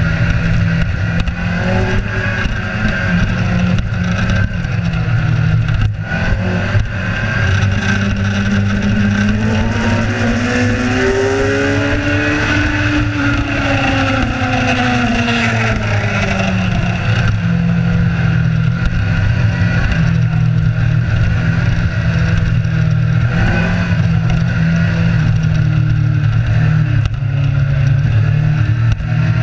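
Motorcycle riding at speed: a steady wind roar and engine drone. About a third of the way in, an engine note rises slowly, peaks near the middle and falls away again.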